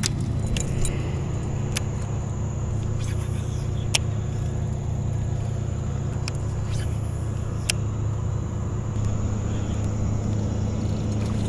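A boat motor hums steadily and low. A few sharp clicks and knocks come from handling the baitcasting rod and reel, the loudest about four seconds in.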